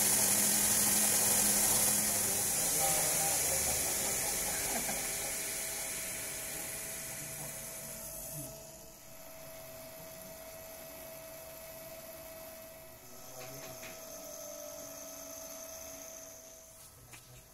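Electric belt grinder running with a steady hiss that slowly dies away as it winds down, then a quiet steady hum with a faint whine.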